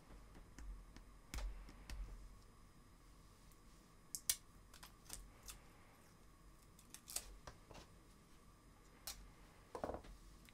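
Faint, scattered clicks and scratches of fingernails picking at the edge of a small roll of tesa adhesive tape, with a few sharper ticks and a short rough scrape near the end.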